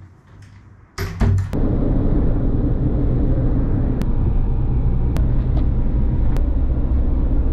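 Inside a moving car on an expressway: a steady low rumble of engine and tyre noise, starting about a second in after a short quiet stretch.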